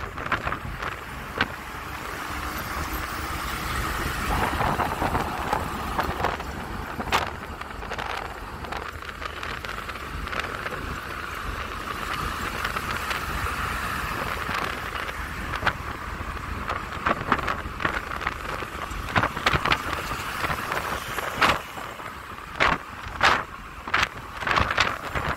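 Road traffic noise heard from a moving vehicle: a steady rumble of tyres and engines with other cars and minibuses passing close by. Short sharp crackles come now and then, more often near the end.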